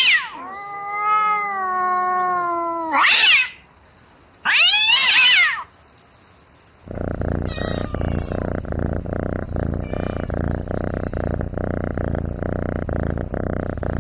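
Domestic cat caterwauling: a string of loud, drawn-out yowls, one long wavering call and several shorter calls that rise and fall in pitch. These are the calls of a cat seeking a mate. About seven seconds in they give way to a steady low pulsing sound.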